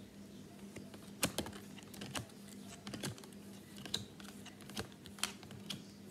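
A stack of AFL Select Footy Stars trading cards being shuffled through by hand, cards slid from front to back: scattered light clicks and snaps of card edges, about eight in six seconds.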